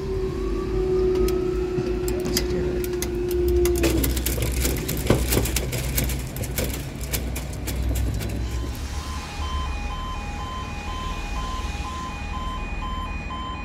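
Level crossing boom barrier rising, its drive giving a steady hum that stops about four seconds in, followed by clicking. From about nine seconds in the crossing's audible warning alarm sounds in regular pulsed tones as the red road lights come on again.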